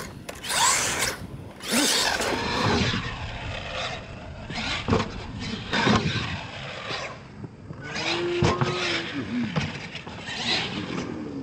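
Radio-controlled monster truck's motor whining in repeated bursts as it is throttled, with tyres spinning on dirt and a few knocks as it tumbles and lands.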